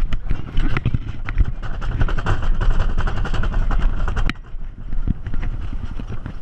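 Wooden roller coaster train climbing its chain lift hill, heard on board: rapid, uneven mechanical clacking over a low rumble, easing a little about four seconds in.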